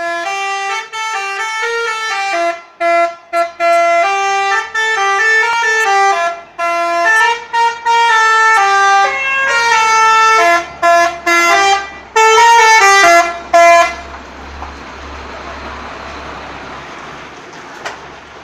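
Telolet horn playing a tootling tune of quick stepped notes with short breaks for about fourteen seconds. It then stops, leaving a quieter steady low hum with hiss.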